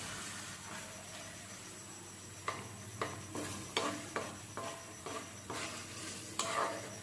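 Wooden spoon stirring a wok of tuna, tomatoes and seasoning over a faint sizzle, scraping or knocking against the metal roughly every half second from about two and a half seconds in.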